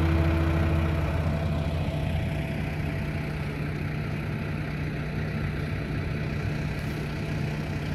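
Heavy diesel truck engine idling with a steady low hum. The tail of background music fades out in the first second or two.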